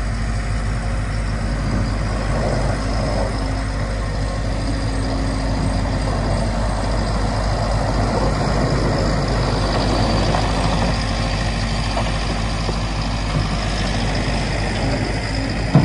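Diesel engine of heavy snow-clearing equipment running steadily, swelling a little about two-thirds of the way in, with a single short knock near the end.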